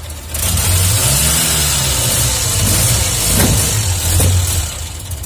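Car petrol engine running on a newly fitted electronic-ignition distributor, its speed rising and falling as it is revved while the distributor is being set. The engine dies away near the end.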